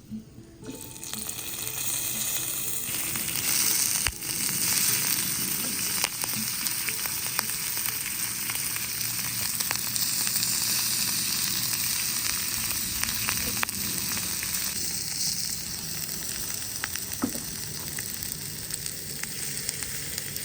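Pork belly frying in oil on a hot tawa: a steady, loud sizzle with many small pops and crackles, swelling in about a second in.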